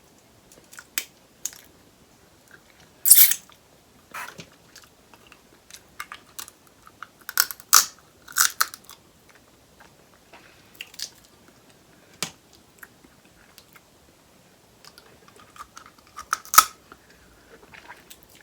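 Close-up eating sounds: chewing and biting, with irregular sharp cracks and snaps as king crab leg shells are broken open. The loudest cracks come about three seconds in, around eight seconds in, and near the end.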